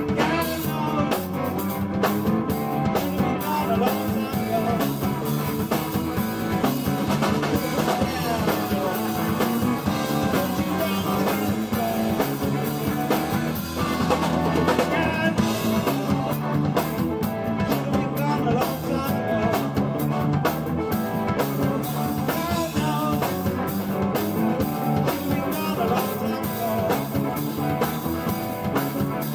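A live blues-rock band playing: electric guitar and drum kit, with some singing.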